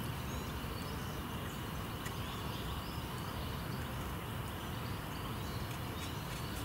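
Quiet outdoor countryside ambience: a steady low hiss with a few faint, brief bird chirps.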